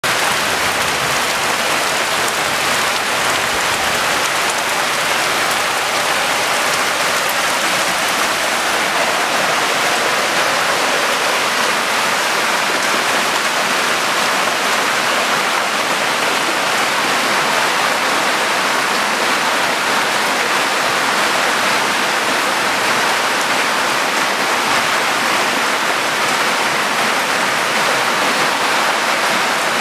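Heavy rain falling together with muddy floodwater rushing down a dirt street, one steady, even hiss with no breaks.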